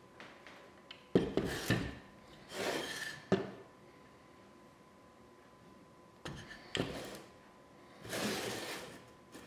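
1833 wooden plow plane handled and turned over on a hardboard bench top: several sharp wooden knocks as it is set down, with two longer sliding, rubbing sounds between them.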